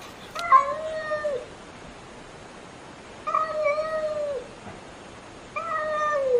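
A domestic cat meowing three times, a couple of seconds apart. Each meow is a drawn-out, level call that drops in pitch at its end; the last one starts near the end and carries on.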